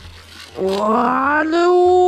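A long drawn-out wailing cry that starts about half a second in, rises in pitch, then holds one steady note.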